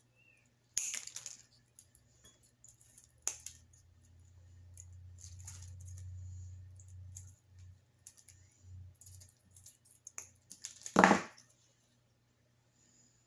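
Hyper Tough wire cutters snipping through floral wire and stems, with sharp clicks about a second in and again a couple of seconds later, and small ticks of wire being handled. Near the end the metal cutters clatter as they are set down on the table, the loudest sound.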